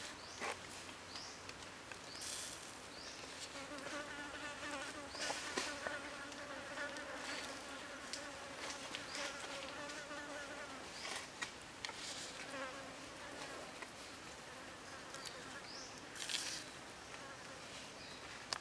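A flying insect buzzing in a steady hum from about four seconds in until about eleven seconds in, with scattered short clicks and rustles.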